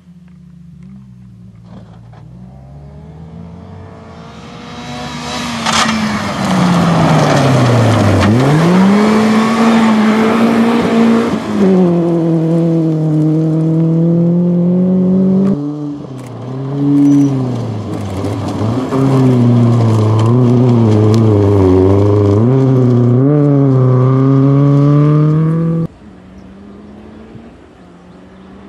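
Rally car engine, a red BMW 3 Series, driven hard on a gravel stage. Its pitch climbs and drops again and again through gear changes, getting loud as the car comes close. About 26 s in it cuts suddenly to a quieter engine, farther off.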